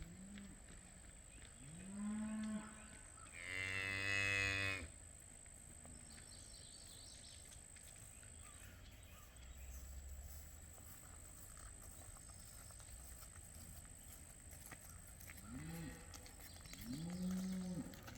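Cattle mooing on a cattle drive: a few calls at the start, the loudest and longest at about four seconds in, a quieter stretch, then a run of calls near the end.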